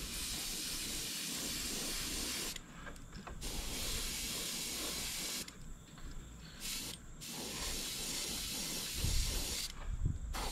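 Iwata gravity-feed airbrush spraying a thin coat of white opaque paint, hissing in bursts: three sprays of two to three seconds each and one brief puff, with short pauses between, stopping near the end.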